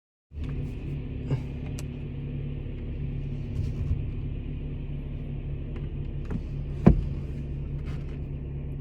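Car running, heard from inside the cabin: a steady low rumble with a faint hum, starting abruptly just after the start, with a few light clicks and one sharp knock about seven seconds in.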